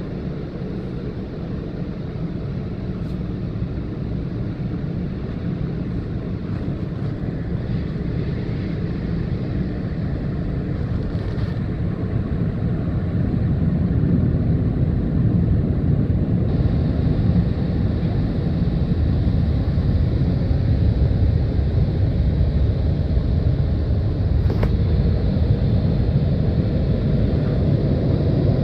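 Istobal M'Start rollover car wash working over the car, heard from inside the cabin: a steady, muffled low rumble that gets louder about halfway through as the gantry comes over the windscreen and the brushes reach the side of the car.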